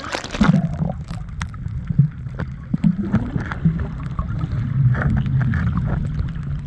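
Tour boat's engine running with a steady low hum, with scattered small knocks and clatter over it.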